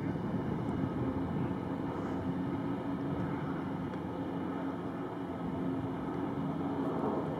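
Off-road vehicle engine running steadily, a continuous low hum that swells slightly about six seconds in.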